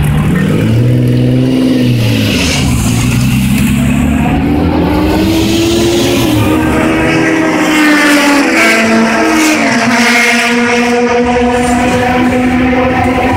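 Classic sports-racing car engines revving up and down, with quick blips of rising pitch about nine and ten seconds in, between stretches of steady running.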